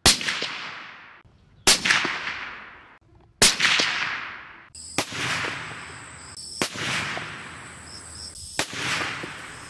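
Suppressed .308 Winchester bolt-action rifle (Ruger American with a SilencerCo Hybrid 46 suppressor) firing: three loud shots about 1.7 s apart, each with a long echo dying away. Then three fainter shot cracks follow, spaced a second and a half to two seconds apart.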